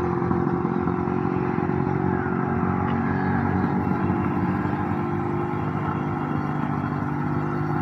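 Engine of a homebuilt aircraft running at a steady speed during a ground engine test.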